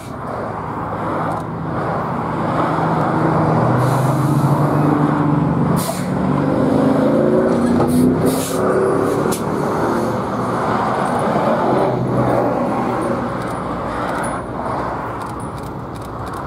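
Road vehicle passing by, its engine note gliding up and then down, over a steady rush of traffic noise.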